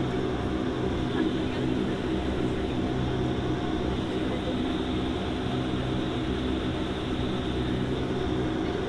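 Cabin noise of a DHC-8 Q400 turboprop taxiing: its Pratt & Whitney PW150A engines and six-bladed propellers give a steady drone with several fixed tones.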